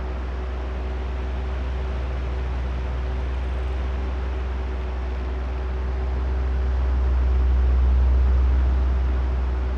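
Oscillating electric fan running: a steady low motor hum and the rush of air off the blades, with a faint steady whine over it. The sound swells slowly to its loudest about eight seconds in and eases off again as the fan head turns.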